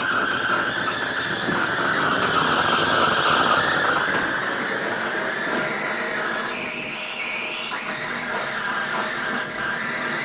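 Loudspeakers giving out a hissing, crackling electronic noise with a wavering whistle-like tone through it, heard even with the mixer levels at zero. The owner suspects a faulty amplifier or, less likely, a ground fault in the house wiring.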